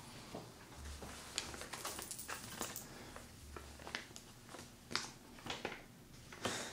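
Quiet small room with scattered faint clicks and short rustles, no rhythm to them, and a low hum from about one second to four seconds in.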